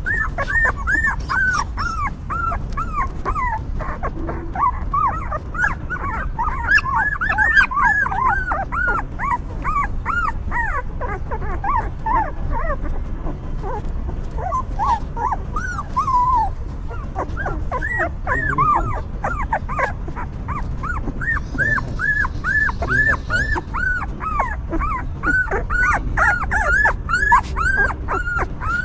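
Several newborn puppies whimpering nonstop, a dense stream of short, high cries that rise and fall, often overlapping.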